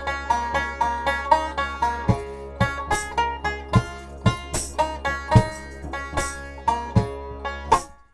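One-man-band instrumental: a banjo picking a melody over a steady didgeridoo drone, with foot-pedal kick or cajon beats. Everything cuts out briefly near the end.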